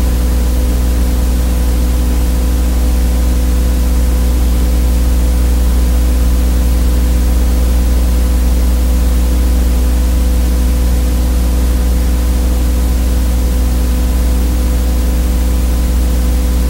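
Loud, steady electrical buzz: a mains-type hum with a stack of overtones under a constant hiss, which never changes. It is noise on the soundtrack of a silent 8mm home movie, not sound from the scene filmed.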